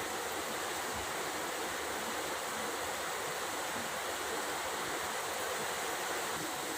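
Heavy rain falling: a steady, even rushing hiss.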